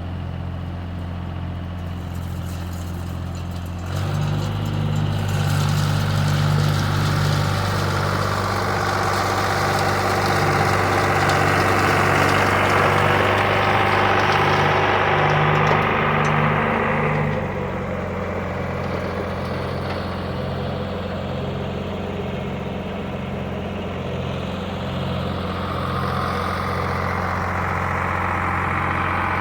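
Tractor engine running steadily. About four seconds in it works harder, louder and with a higher rushing whine, then settles back to a lower, steady run after about seventeen seconds.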